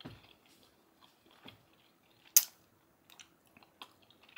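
A person chewing a mouthful of chili and rice: soft, wet mouth noises and small clicks, with one sharp click about two and a half seconds in.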